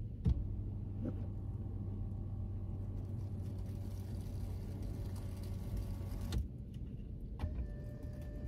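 Steady hum of a parked car running, heard from inside the cabin. There is a click just after the start. The hum and hiss drop about six and a half seconds in, and a steady whine comes in after another click near the end.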